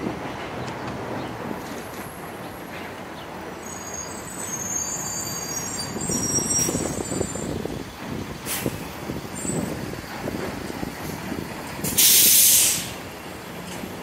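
City street traffic rumbling past, with a high brake squeal a few seconds in. Near the end, a heavy vehicle's air brakes let off a sharp hiss lasting under a second, the loudest sound.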